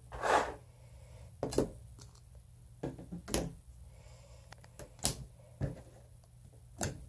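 Blue slime being pressed and poked by hand on a tabletop, giving short, sharp pops and clicks at irregular intervals, about seven of them.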